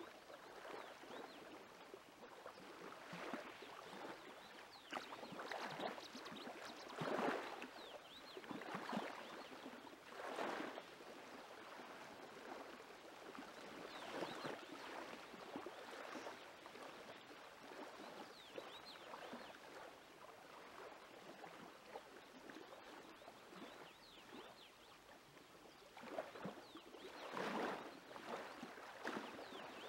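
Small lake waves lapping on the shore, a faint wash of water that swells and fades every few seconds.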